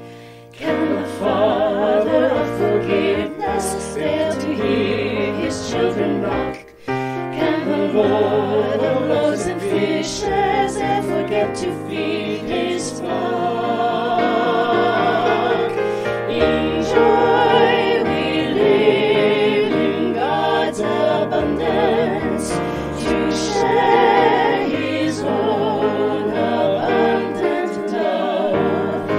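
A virtual choir, put together from separately recorded voice files, singing a slow hymn-like anthem in harmony with instrumental accompaniment, with a short break about six and a half seconds in.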